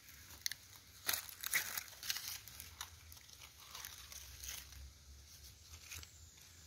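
Faint, irregular crackling and rustling of dry dead leaves, with a cluster of crackles about a second in.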